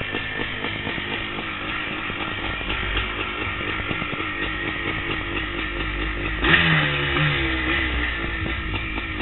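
The CB490 motorcycle's engine running as the bike rolls off slowly, with low wind rumble on the helmet microphone. About six and a half seconds in, a sudden sharp rev whose pitch falls back over about a second.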